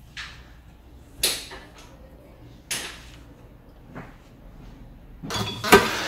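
Sharp metallic clicks, three of them spaced over the first four seconds, then a louder clatter near the end as a motorcycle wheel is handled on a wheel balancer and taken off it.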